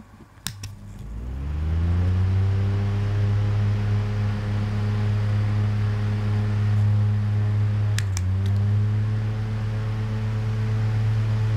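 Sekai 6-inch desk fan (model HDO 615S, 20 W) switched on with a click, its motor humming up to speed over about a second with rising pitch, then running steadily with a low hum and rushing air. About eight seconds in there are switch clicks and the hum dips briefly before settling again.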